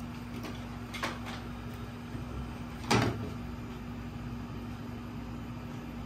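Frying pan knocking against the gas stove's metal grate as it is lifted and tilted to spread oil: a few light clicks, then one louder knock about three seconds in, over a steady low hum.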